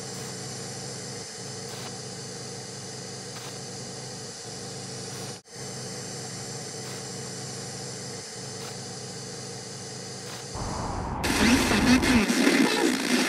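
Steady electronic hum and hiss with faint ticks about once a second, briefly dropping out about five seconds in. About ten and a half seconds in, a much louder engine-like mechanical rumble builds up and carries on.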